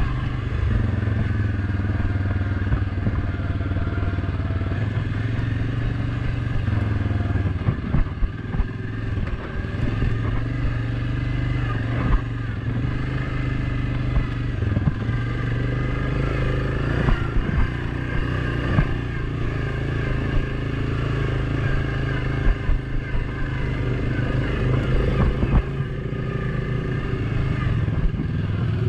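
ATV engine running steadily on a trail ride, its pitch shifting a little with the throttle, with sharp knocks and rattles now and then from the machine going over bumps.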